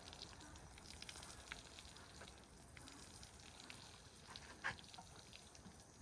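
Near silence with faint scattered ticks and crackles, and one sharper click about four and a half seconds in.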